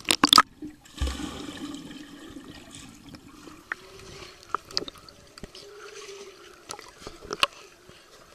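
A child splashing into a swimming pool off a plastic slide: a heavy splash about a second in, followed by water sloshing and gurgling close around a camera held at the water's surface, with small splashes and drips.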